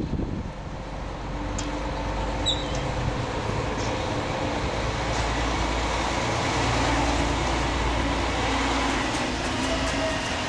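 City street traffic noise: a steady rumble of a large vehicle running past, with a brief high squeak about two and a half seconds in.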